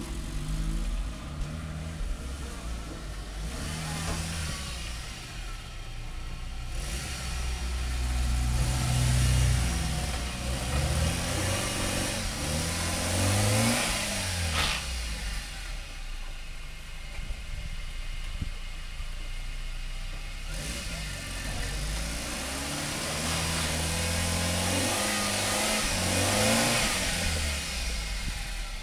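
Toyota Corolla 4WD's engine running as the car drives, its pitch rising and falling repeatedly, with a rushing noise that swells and fades several times.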